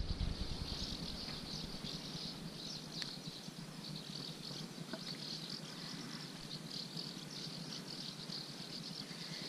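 A steady chorus of insects chirping, high-pitched and finely pulsing without a break, over a low rumble.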